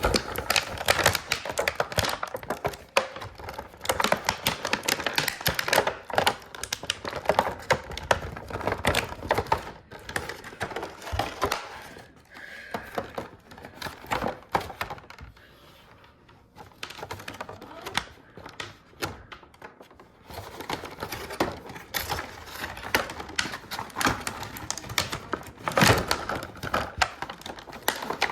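Plastic and cardboard toy packaging being handled and opened: rapid, irregular clicks, taps and crinkles, easing off for a few seconds past the middle.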